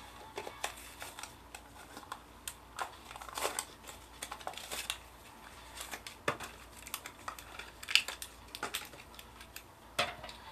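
Plastic blister pack and cardboard backing card of a Matchbox die-cast car being torn and pried open: irregular crinkling with sharp plastic clicks and snaps, the loudest snap about eight seconds in.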